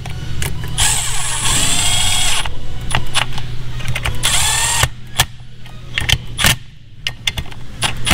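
Cordless drill-driver with a 7 mm socket running in the bolts that hold the relay to the back of an alternator. There are two bursts of motor whine that rise and fall in pitch, a longer one about a second in and a short one past four seconds, with sharp clicks of metal parts between them.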